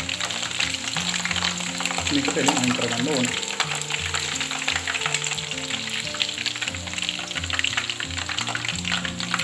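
Battered chicken pieces deep-frying in hot oil, a dense steady crackle and sizzle, over background music.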